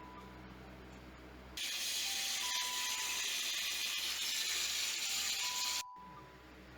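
A steady, loud hiss starts about one and a half seconds in and cuts off suddenly about four seconds later.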